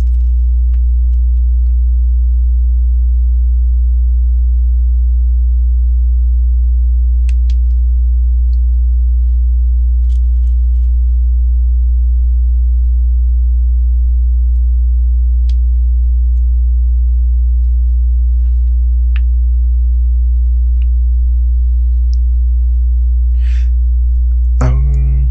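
A loud, steady low hum with a few fainter overtones above it, with now and then a faint click of Lego pieces being handled, and a short rustle near the end.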